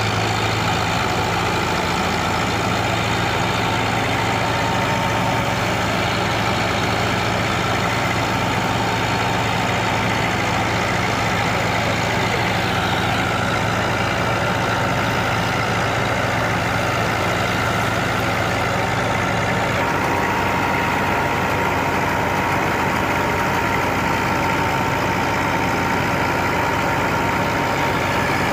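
Massey Ferguson 265 tractor's three-cylinder diesel engine running steadily under the load of driving a wheat thresher, with the thresher's drum running alongside.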